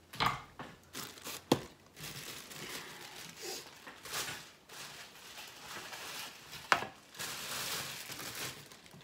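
Crinkling and rustling of a clear plastic bag being handled as a paper plate is pulled out of it, with two sharp knocks, about a second and a half in and again near the end.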